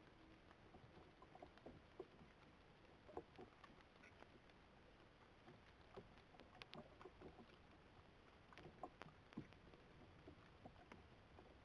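Near silence: faint hiss of night ambience with scattered soft clicks and rustles.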